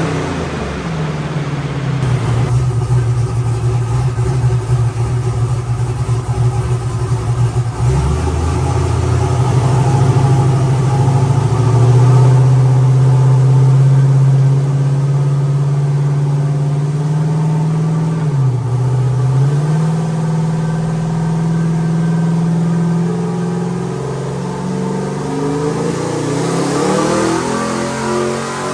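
Turbocharged methanol Chevy Nova engine running at high, fairly steady revs under a dyno pull, with a brief dip in revs about 18 seconds in and a climb again near the end. It holds revs without building boost: only about 2.5 psi, which the owner puts down to too little load from the dyno.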